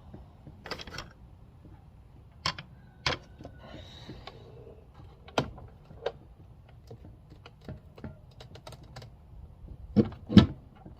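Scattered plastic clicks and knocks as a flathead screwdriver pries at a Fox-body Mustang console armrest lid that is held shut with Velcro, with two louder knocks close together near the end.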